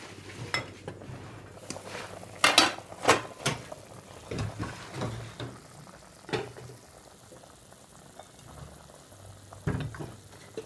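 An aluminium cooking-pot lid is lifted off and set down with several metallic clanks, the loudest cluster about two and a half to three and a half seconds in, with a few lighter clinks later. Underneath, a pot of wax gourd and pork rib soup simmers softly.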